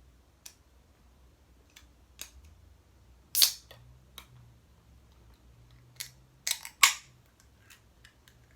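A Sprite being opened: scattered light clicks and short, sharp hisses, the loudest about three and a half seconds in and a cluster of loud ones around seven seconds in.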